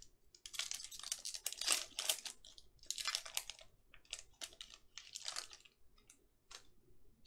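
Foil pack of 2020 Panini Mosaic football cards being torn open and crinkled: a dense run of tearing and rustling for the first few seconds, then shorter, separate crinkles as the cards are pulled out.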